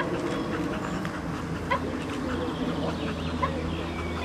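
A small dog yapping: three short, high yips spaced about a second and a half apart, over a steady low hum.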